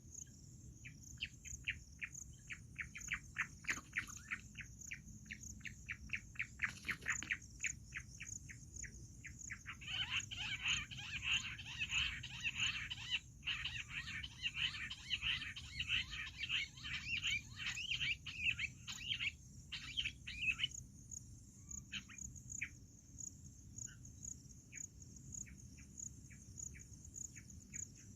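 Bush quail calling: quick trains of short repeated notes that swell into a dense, overlapping chorus about a third of the way in, then thin out to scattered single notes.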